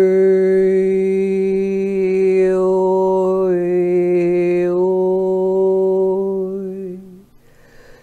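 A woman's voice toning one long sustained note in a mantra-like chant, the vowel shifting as it is held. The pitch steps down slightly about halfway through, and the tone fades out near the end.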